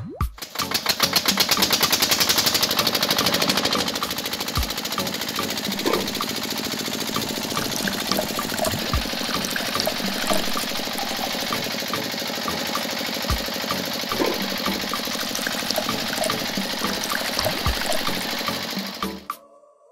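Small motor of a miniature model engine running, belt-driving a toy fruit crusher with a fast, steady rattle and scattered small knocks, while juice splashes into a cup. It starts just after the beginning and cuts off about a second before the end.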